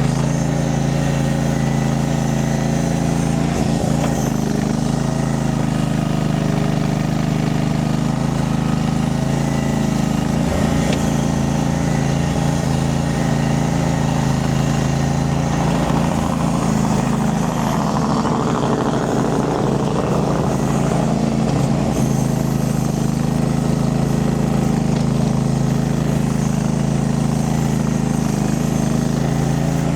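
Mini skid steer engine running steadily at working speed while the machine grades, with an added rough, rushing noise for several seconds around the middle.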